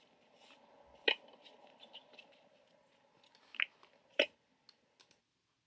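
Faint, sharp strikes of tennis racket strings on the ball in a rally, two hits about three seconds apart, with a short high squeak just before the second hit and a few small clicks after it.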